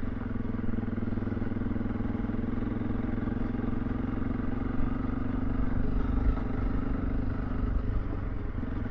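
Honda CRF300L Rally's single-cylinder engine running steadily while the motorcycle is ridden at low speed, swelling slightly about six seconds in.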